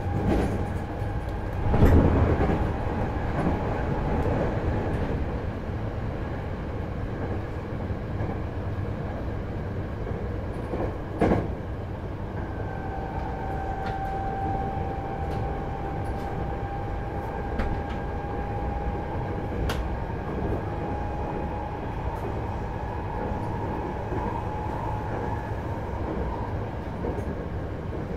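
Running noise heard aboard a Hankyu 8000 series electric train at speed: a steady rumble of wheels on rail. Sharp knocks come about two and eleven seconds in, and a faint high whine runs through the middle part.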